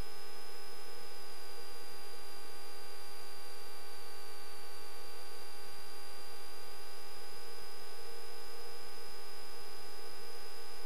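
Steady electrical hum and whine from the Cessna 172's intercom and radio audio feed: several fixed tones over a hiss, with a high whine that drifts slightly in pitch.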